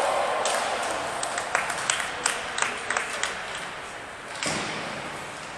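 Youth ice hockey play in a rink: a quick run of sharp clicks and taps of sticks and puck, over a steady hiss of arena noise, with a duller thump about four and a half seconds in.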